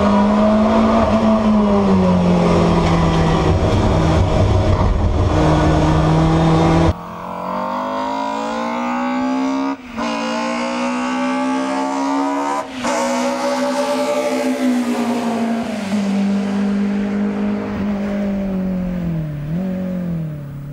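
BMW M3 E30's four-cylinder S14 racing engine running hard at high revs, pitch rising and falling. About seven seconds in, the sound cuts to a quieter take of the engine climbing steadily in pitch, with two very brief breaks, then falling away near the end.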